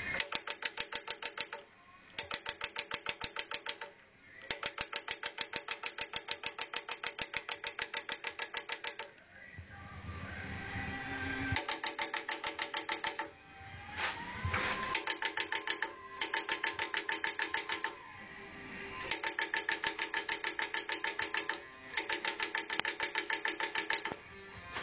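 Homemade M2HB .50-cal simulated-fire rig cycling dry, without gas, its firing mechanism giving rapid, even machine-gun-rate clicking in seven bursts of one to four seconds with short pauses between them.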